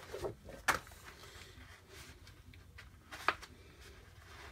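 Hands handling a large plastic craft transfer sheet with its paper backing: faint rustling with a few short taps and clicks as the sheet is turned over.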